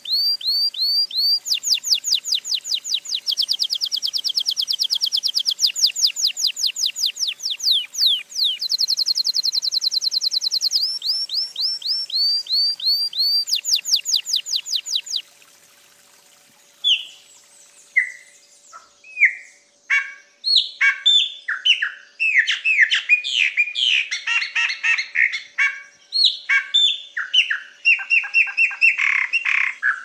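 A domestic canary (Belgian canary) singing rolling trills: fast runs of very high repeated notes in phrases that change speed every second or two, breaking off about halfway through. After a short pause a chopi blackbird (pássaro-preto) takes over with clear whistles and downward-slurred notes that build into quicker, denser phrases.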